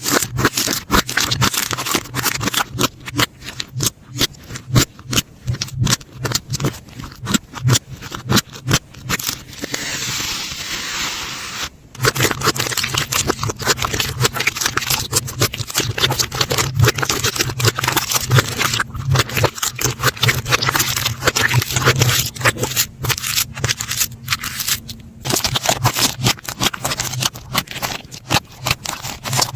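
Slime being squeezed and poked by hand close to the microphone: dense rapid crackling and wet clicking, which gives way to a smoother hiss for a couple of seconds about ten seconds in.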